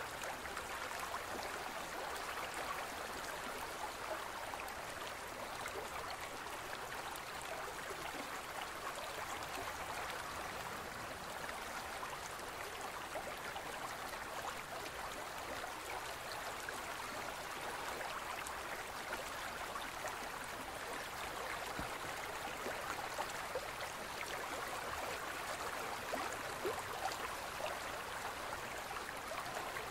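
A gentle stream running steadily, its water trickling and babbling over rocks in an even, unbroken wash.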